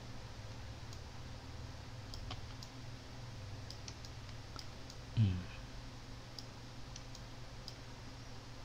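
Scattered light computer-mouse clicks over a low steady hum, with one short vocal sound about five seconds in.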